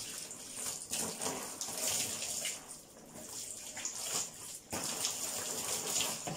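Water splashing and trickling into a tub in uneven spurts as long wet hair is rinsed.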